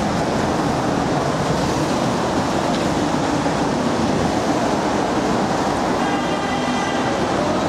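Steady street traffic noise, a dense rumble of passing vehicles, with a faint high whine briefly about six seconds in.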